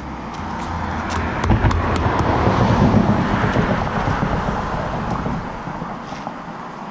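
A road vehicle driving past, its noise swelling to a peak about three seconds in and then fading away, with a few light clicks near the start.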